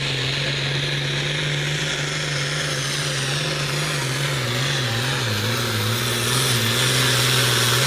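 Hot farm class pulling tractor's diesel engine running at high revs, its pitch wavering midway and getting louder near the end.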